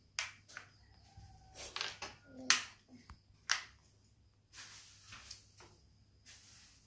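Light irregular clicks and clatter of plastic toy fishing pieces being handled, with the sharpest click about two and a half seconds in and soft rustling between.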